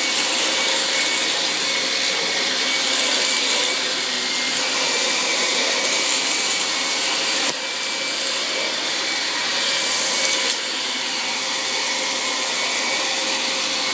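Vacuum cleaner running steadily, its airflow hiss and high motor whine unbroken. The sound dips briefly twice, about halfway through and again a few seconds later.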